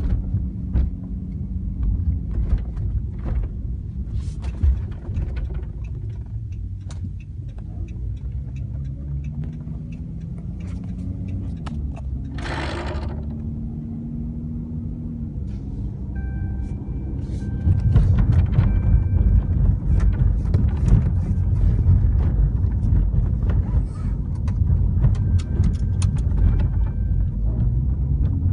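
Road and engine rumble inside the cabin of a 2013 Chrysler 300 on the move, with scattered light clicks from a rattle in the rear parcel shelf. About twelve seconds in there is a harsher rattle lasting about a second. The rumble grows louder in the second half.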